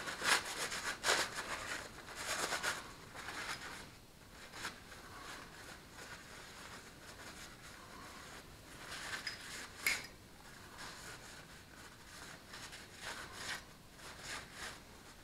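Rag rubbing and wiping over a small metal engine part, cleaning off packing cosmoline. It comes in bursts, strongest in the first few seconds, with a sharp click about ten seconds in.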